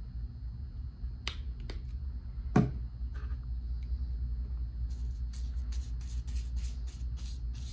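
A couple of light clicks and one sharp knock, then a paintbrush brushing paint onto a paper plate in short scratchy strokes, about three a second, over a steady low hum.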